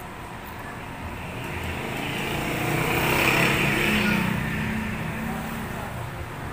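A motor vehicle passing by: its engine noise swells to its loudest about three seconds in and then fades away.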